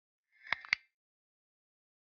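A mouse-click sound effect: two quick sharp clicks about a fifth of a second apart, about half a second in.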